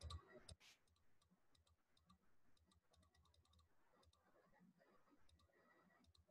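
Faint computer mouse clicks, in quick runs of several clicks at a time, as an on-screen scroll arrow is clicked again and again.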